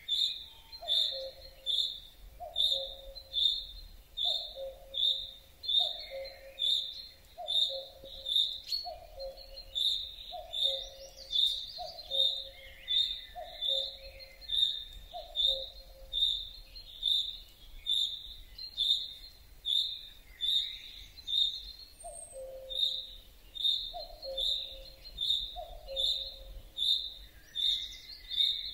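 Chaffinch repeating a single short, high call note about twice a second at an even, monotonous pace: the unusual call that is easily taken for another species. A lower note repeats about once a second in the background and pauses for several seconds in the middle.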